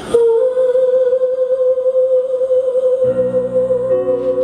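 A male singer holding one long, amplified note with a slight vibrato. About three seconds in, backing music chords come in underneath.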